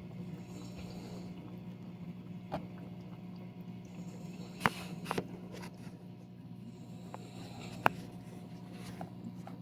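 A steady low electrical hum, typical of an aquarium air pump or filter, with a few sharp clicks, two of them louder, about halfway through and near the end. Faint breaths of a person snoring softly come and go every few seconds.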